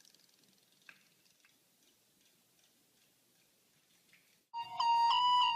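A few faint, scattered clicks and ticks at low level. About a second before the end, loud music with steady held, stepping notes comes in.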